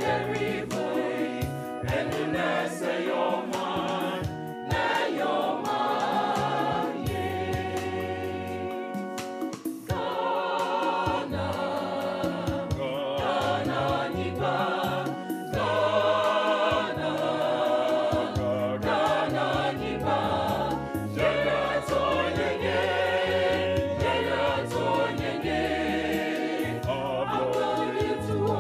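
Background music: a choir singing a gospel-style song over a stepping bass line.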